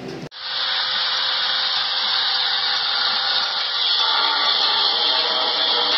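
A steady hissing noise, even and unbroken, starting abruptly just after a cut.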